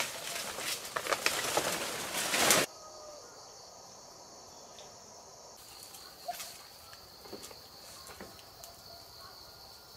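Loud rustling and clattering with sharp knocks for the first few seconds, then an abrupt cut to a steady high insect chorus, crickets trilling, with a few faint clicks.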